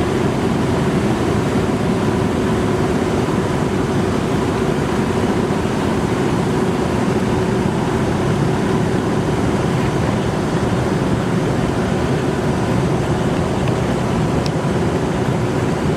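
A small fishing boat's motor running steadily at a constant pitch, with dense rushing noise from churning water underneath.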